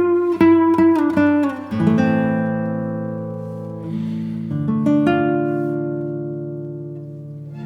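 Background music on acoustic guitar: quickly picked notes, then sustained strummed chords left to ring and fade.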